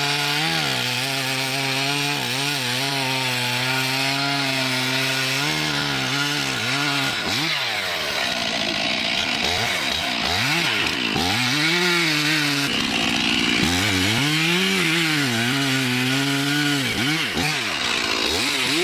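Gasoline chainsaw running at high revs and cutting wood. Its engine pitch holds steady at first, then repeatedly dips and recovers as the chain bites into the timber and eases off.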